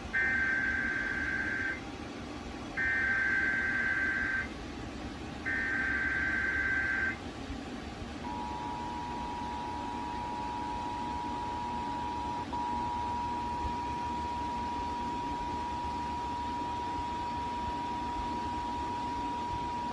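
Emergency Alert System test tones played through a TV: three short bursts of the buzzy digital SAME header data, each under two seconds, then about eight seconds in the steady two-tone attention signal begins and holds, with a slight glitch partway through.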